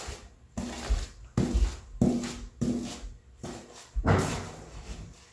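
Paintbrush scrubbing glue onto an OSB subfloor along the baseboard: a series of short scratchy strokes, the strongest about four seconds in.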